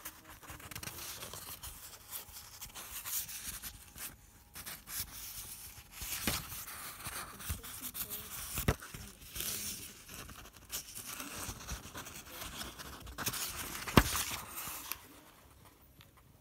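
Sheets of drawing paper rustling and crinkling as the pages of a handmade notebook are handled and turned close to the microphone. Several sharp clicks come through the rustle, the loudest about fourteen seconds in.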